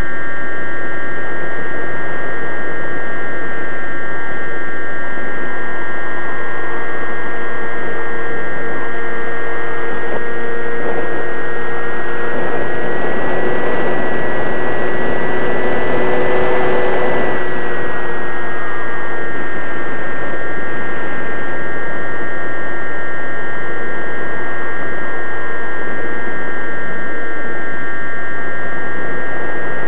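Radio-controlled model airplane's motor whining steadily, heard from the camera on board, over a rush of air. About halfway through, the rush grows louder and the whine rises a little in pitch for several seconds, then eases back to the steady cruise sound.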